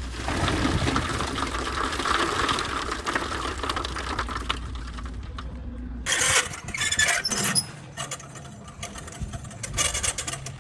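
A machine engine running steadily for about six seconds, then an abrupt change to irregular scraping and clattering.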